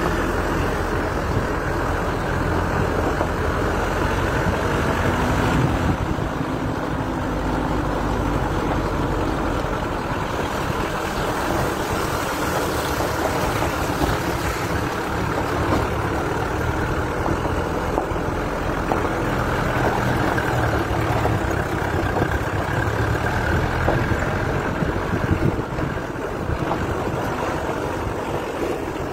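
Engine of an off-road vehicle running steadily as it drives along a rough gravel mountain track, heard from on board, with road noise from the tyres on loose stone.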